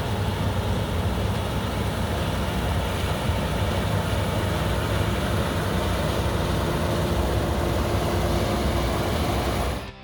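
Case IH 8230 combine running steadily while harvesting wheat, a loud, even machinery drone that cuts off abruptly near the end.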